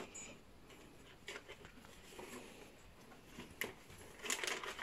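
Greyhound nosing through a cardboard box of packaged treats and toys: faint rustling and small clicks, turning to louder crinkling of plastic packaging near the end as it takes hold of a packet.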